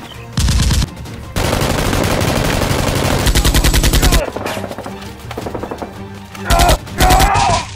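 Automatic gunfire sound effect in bursts of rapid shots: a short burst, then a long one of about three seconds ending in fast even strokes, then two short bursts near the end.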